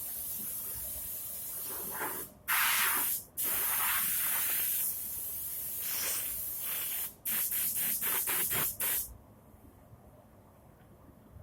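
A loud hissing spray of air or gas, running for several seconds with short gaps, then released in about six quick bursts before cutting off suddenly.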